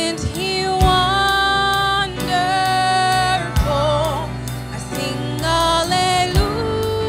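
Live worship band playing a slow song: singers hold long sung notes over keyboard, acoustic guitar and drums, with a strong drum hit roughly every three seconds.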